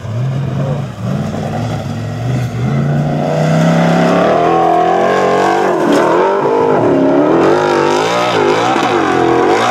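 Formula Offroad hillclimb buggy's engine revving hard on a steep sand climb. It runs steadily at first, then rises in pitch and gets louder about three seconds in, and swings quickly up and down as the driver works the throttle.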